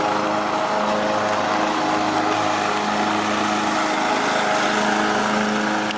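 Riding lawn mower engine running steadily under load while cutting grass.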